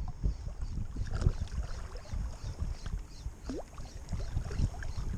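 Wind buffeting the microphone in an irregular low rumble, with shallow sea water lapping around the rocks.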